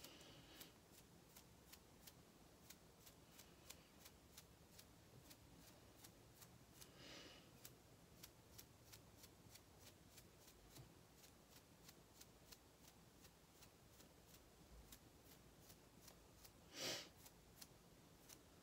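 Faint, quick ticks, about three a second: a paintbrush loaded with white gouache being tapped repeatedly to splatter stars onto watercolor paper. Two brief soft hisses come through about seven and seventeen seconds in.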